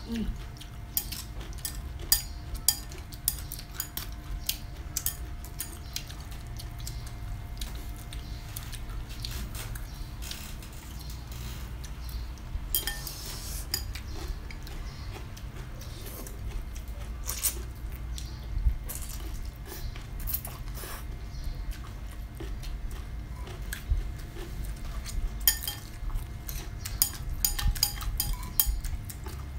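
Chopsticks and a spoon clicking and clinking against ceramic bowls during a meal of rice noodles, in scattered short taps that come thickest near the start and near the end, over a steady low rumble.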